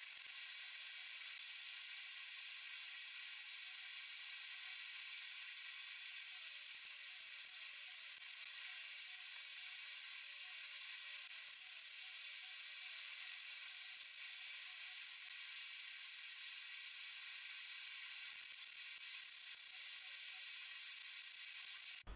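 A steady, even hiss with no hammer blows to be heard.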